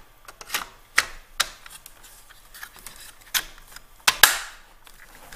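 Scattered plastic clicks and knocks as the circuit-board faceplate of a Clack WS1 water softener valve is handled and fitted onto the valve head. The loudest are two close knocks about four seconds in.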